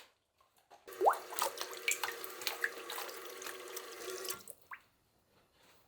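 Kitchen tap turned on about a second in, water running steadily into a sink for about three and a half seconds, then shut off abruptly.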